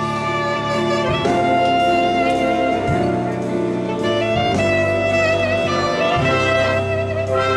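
Live band playing a jazz-style hymn arrangement, a saxophone carrying long held notes over horns and rhythm, with the chords changing every second or so.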